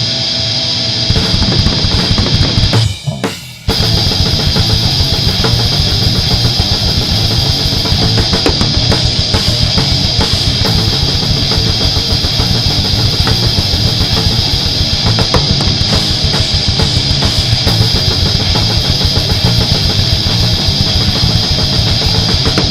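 Heavy metal band recording: distorted electric guitar alone at first, then the full band with drum kit comes in about a second in. After a brief stop near three seconds, the band resumes with fast, steady drumming under the guitars.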